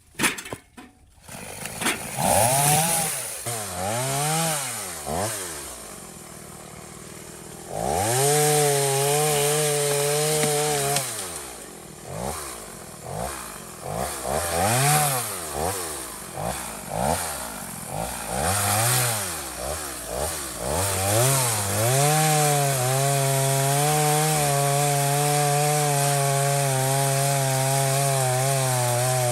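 Chainsaw's two-stroke engine. After a few sharp knocks it starts about two seconds in, is revved up and down repeatedly, dropping back to idle between, and is held at a steady high speed for the last several seconds.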